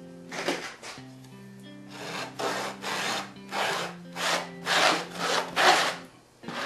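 Plastic spreader scraped back and forth over Henry's weave mesh wet with spray adhesive on an EPP foam wing, spreading the glue. A run of rasping strokes, about two a second, getting louder after the first couple of seconds.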